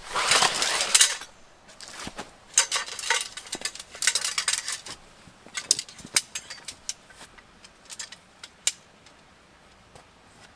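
Canvas swag rustling as it is handled, with metal tent-pole sections clinking and clicking as they are fitted together. The rustling is loudest in the first second, and the scattered sharp clicks grow sparser toward the end.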